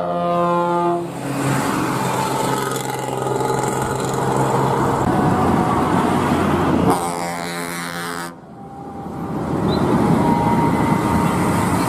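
Toy vehicle sound effects from a small speaker: an engine running and revving, with a steady buzzing horn-like tone at the start and again briefly after the middle. The segments switch abruptly, like a looped recording.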